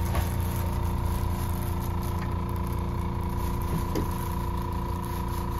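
Steady machine hum, like a small electric motor running, with a constant higher whine above it.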